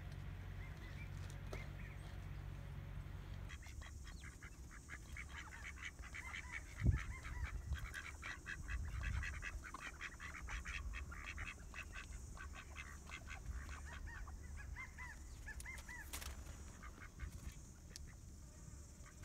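Ducks calling in a rapid run of short quacks, starting a few seconds in and thinning out after the middle. A single low thump about seven seconds in is the loudest sound.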